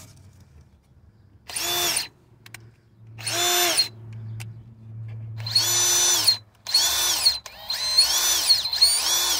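Ridgid R8701 SubCompact brushless cordless drill/driver spinning with no load under short trigger pulls, six times. Each pull is a whine that rises in pitch as the motor speeds up and falls as it stops, like an RC car, and the later pulls come in quicker succession.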